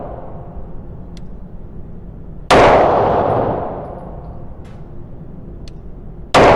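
Two pistol shots about four seconds apart, each sharp crack followed by a long echoing decay, with faint sharp ticks in between.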